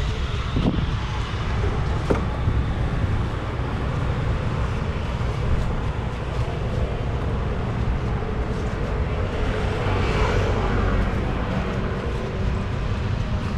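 Steady low rumble of street traffic, with a passing vehicle swelling louder about ten seconds in. Two short clicks come about one and two seconds in.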